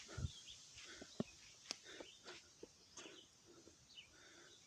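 Quiet open-air ambience with faint, scattered bird chirps and a few soft clicks.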